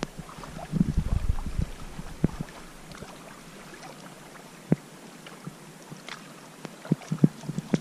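Small waves lapping at a lakeshore under light wind, with gusts on the microphone and a few soft knocks from handling.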